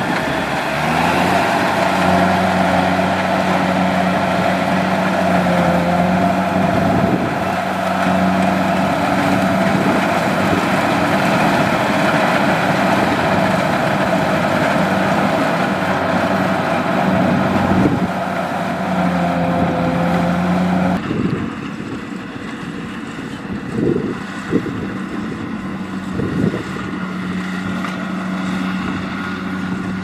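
Kubota DC70 Plus rice combine harvester running steadily under working load, its diesel engine and machinery giving a continuous drone. About two-thirds of the way through the sound changes abruptly, and a couple of knocks follow.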